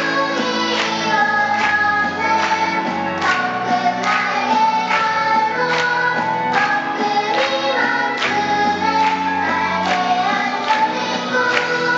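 Music: voices singing a melody over an instrumental backing with a steady beat.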